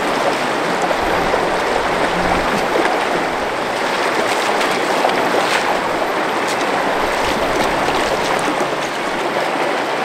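Shallow stream running fast over rocks, a steady rush of water, with the splashes of hikers' feet as they wade through it.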